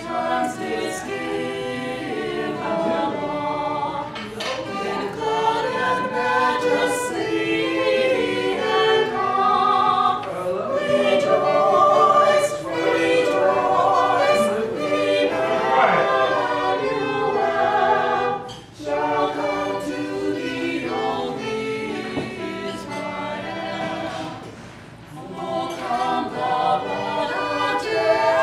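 A small mixed group of singers performing a song together, accompanied by violin and keyboard, with short breaths between phrases.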